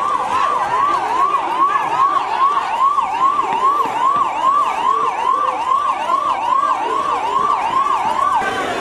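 An emergency vehicle's siren in a fast yelp, its pitch sweeping up and down about three times a second, until it cuts off near the end.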